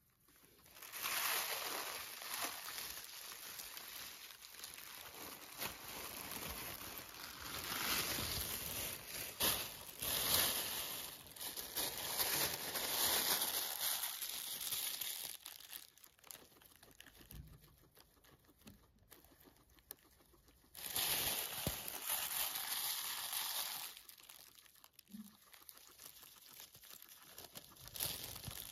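Thin plastic bag crinkling and rustling as a guinea pig roots through the greens inside it. The crinkling comes in long loud stretches, from about a second in to about halfway and again briefly later, with quieter gaps between.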